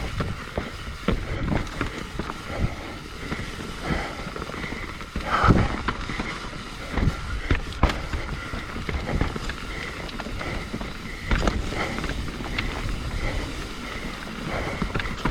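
Mountain bike rolling fast down a rough trail: steady tyre and drivetrain rattle, with several sharp knocks as the wheels hit roots and drops. The loudest knock comes about five and a half seconds in.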